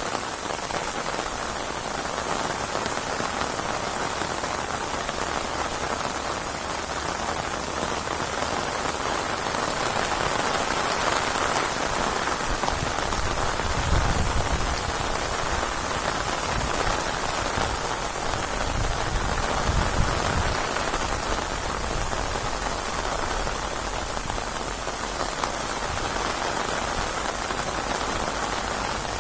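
Steady heavy rain falling, a dense, even hiss of drops. Twice near the middle, brief low rumbles swell under it.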